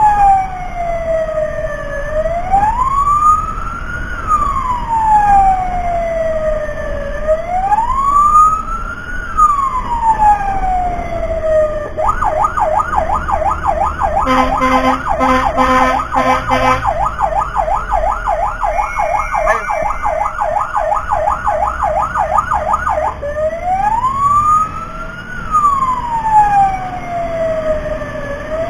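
Emergency vehicle's electronic siren in a slow rising-and-falling wail. About 12 seconds in it switches to a fast yelp of about three or four cycles a second, then goes back to the wail about 11 seconds later, over a low engine rumble.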